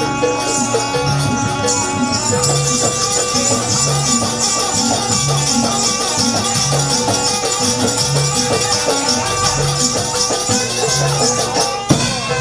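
Javanese jaranan gamelan music: a steady low drum-and-gong beat under sustained metallic and reedy melody tones, with continuous high jingling like shaken bells or rattles. The music breaks off briefly near the end and comes back in.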